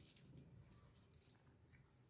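Faint wet squishing with a few soft clicks as fingers mix rice and curry on a plate.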